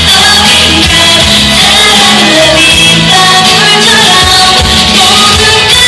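Live pop music in a concert hall: a woman singing over band backing, loud.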